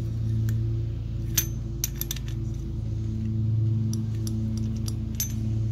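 Small metallic clicks and clinks as a small-engine cylinder head and its valve gear are handled, clustered about one and a half to two seconds in and again later. Under them runs a steady low hum.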